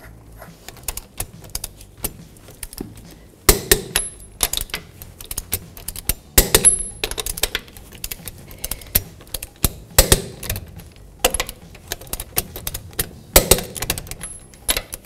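Click-type torque wrench ratcheting on wheel lug nuts, a run of quick metallic clicks, with four louder sharp clicks about three seconds apart as each nut reaches the set torque of 87 foot-pounds.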